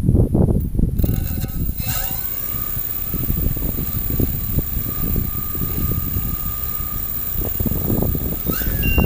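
Strong wind buffeting the microphone in gusts. From about a second in, the steady high whine of a multicopter's motors and propellers hovering close by sits over it until near the end.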